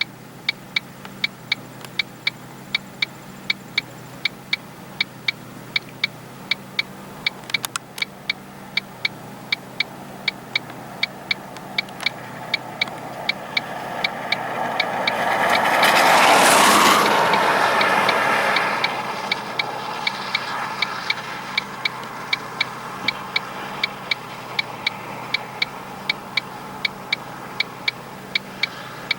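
Car's hazard-light flasher clicking steadily, a rapid even ticking, over the engine idling. About halfway through, a rushing noise swells for a few seconds and fades.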